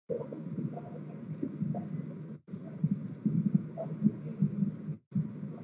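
Scattered small clicks, as of a computer mouse or keys, over a low rumbling background noise on the microphone; the sound cuts out briefly twice.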